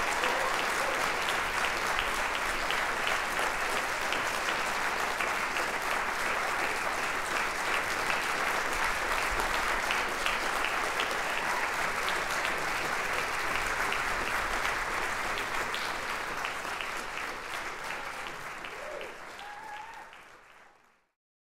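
Theatre audience applauding steadily, with a brief cheer near the end; the applause fades out in the last couple of seconds.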